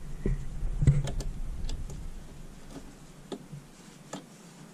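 Small, irregular clicks and taps of metal hardware being handled as a bracket and screw are fitted by hand to the end cap of an LED light bar. A low rumble underlies the first two seconds, then falls away.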